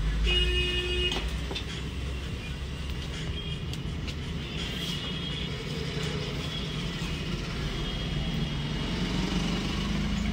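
Steady low rumble of road traffic, with a short high tone about half a second in.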